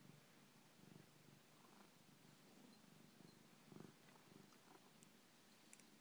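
Long-haired cat purring faintly, the low purr swelling and fading with its breaths. A few faint clicks near the end.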